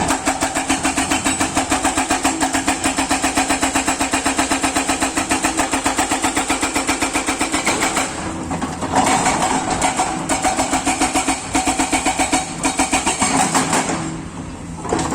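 Kato excavator working: a loud, fast, even pulsing of about seven beats a second. It breaks off briefly about eight seconds in, then picks up again and eases near the end.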